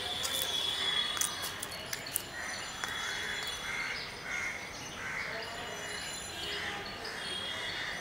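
Crows cawing in a run of short, repeated calls over steady outdoor background noise.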